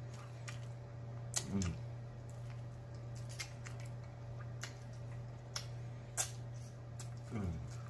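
Close-up eating sounds from finger-picking chicken wings: scattered sharp wet lip smacks and finger-licking clicks, and twice a short falling "mm". A steady low hum sits under it all.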